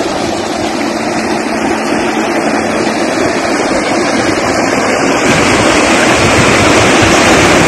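Loud, steady rush of fast-flowing floodwater surging across a road, growing louder about five seconds in.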